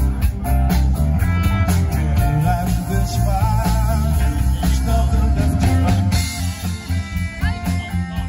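Live rock band playing: electric guitars over bass and a drum kit keeping a steady beat, with a bending lead line in the middle.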